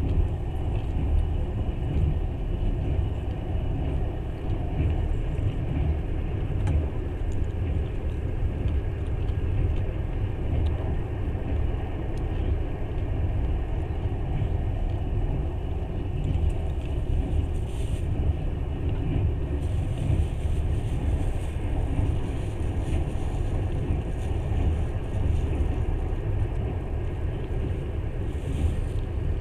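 Steady low rumble of a moving train heard from inside the carriage: the running noise of wheels on the rails and the rolling carriage.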